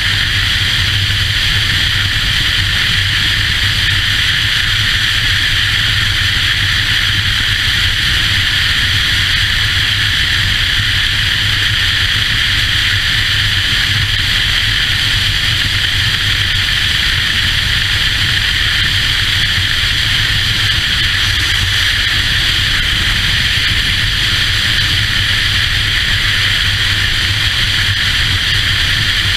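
Steady wind rush over the microphone with a low engine drone underneath, from a motorcycle cruising at a constant speed.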